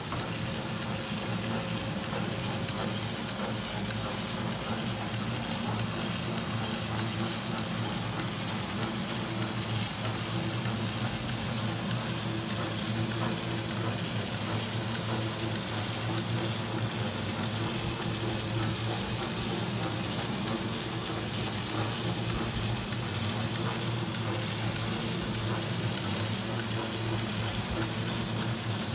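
Ellickson Earflaps prestretch turntable pallet wrapper running: a steady hum from its drive motors with a continuous hiss of stretch film being pulled off the prestretch roll as the pallet turns.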